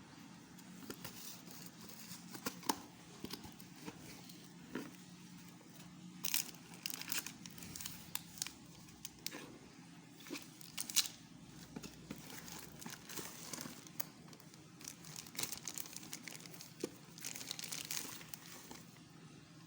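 Packaging being handled and unwrapped: irregular crinkling and rustling with scattered sharp clicks, busiest in a few clusters.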